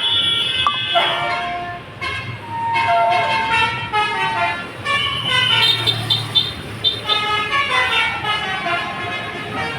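A tour bus's Basuri telolet horn playing a tune of stepped notes that change every fraction of a second, with a short break about two seconds in.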